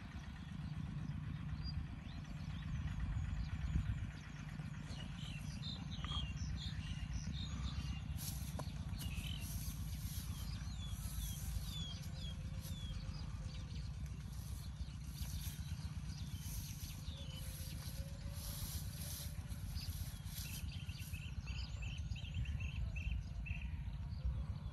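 Outdoor ambience: a steady low rumble, over which small birds chirp and trill in many short quick notes from about five seconds in until about twenty-one seconds, with a repeated call near the end.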